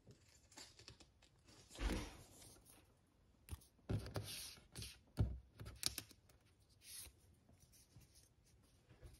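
Trading cards and plastic card sleeves being handled: irregular short rustles and scrapes, the loudest about two seconds in and again from about four to six seconds in.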